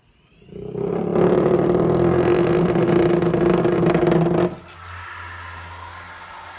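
Niagara Model 11 hand-held electric massager switched on: its motor spins up within about a second to a loud, steady buzzing hum. About four and a half seconds in the hum drops suddenly to a much quieter steady hum.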